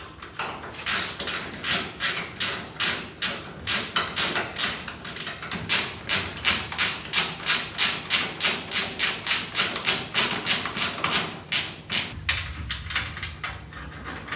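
A hand tool worked in quick, even strokes on metal, making sharp clicks or strikes about three or four a second. They stop about twelve seconds in and a low hum is left.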